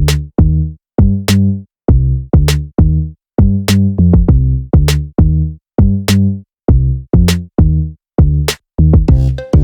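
Background electronic music: a drum-machine beat over a deep, choppy bass line, with a sharp snare-like hit about every 1.2 seconds.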